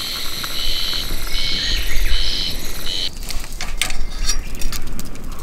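Coffee being poured from a camp kettle into a mug, with birds chirping in the background. A run of sharp clicks follows about three seconds in.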